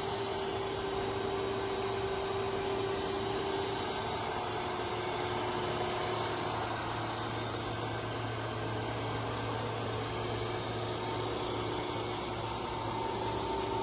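Internal grinding attachment of a Ribon RUR 1000 cylindrical grinder running: its belt-driven spindle and motor give a steady hum with a steady mid-pitched whine.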